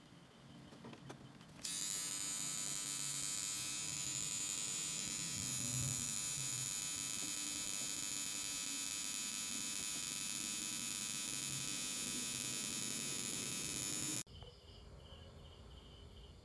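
Transformer-type soldering gun buzzing steadily while switched on, heating its copper loop tip to solder thick transformer leads. The buzz starts suddenly about two seconds in and cuts off near the end, leaving faint cricket chirping.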